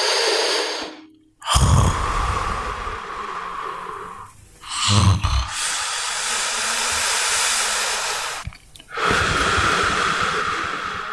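A person snoring: long, rasping breaths with a low rattle, three in a row separated by brief pauses, with a short, louder rasp about five seconds in.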